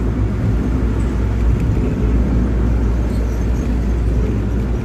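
Steady low rumble of engine and tyre noise heard from inside a vehicle cruising at highway speed.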